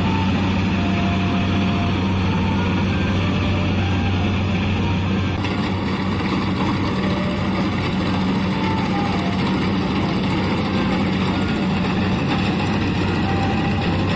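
Kubota DC-70 combine harvester's diesel engine running steadily with a deep, even hum.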